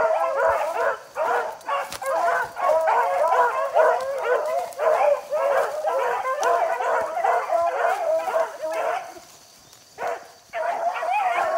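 A pack of beagles baying, several voices overlapping, as they run a rabbit on its trail. The chorus breaks off for about a second near the end, then starts again.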